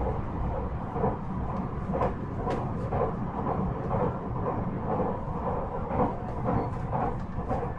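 JR West 223 series 5000 electric train running, heard from inside the passenger car: a steady rumble of wheels on rail with a recurring clatter.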